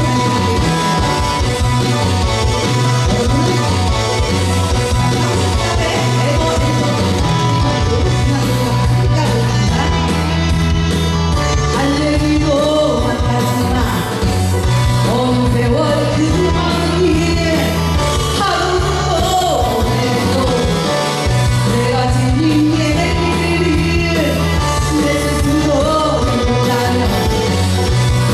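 A woman singing a Korean rock song into a handheld microphone over a band accompaniment with a steady, repeating bass line.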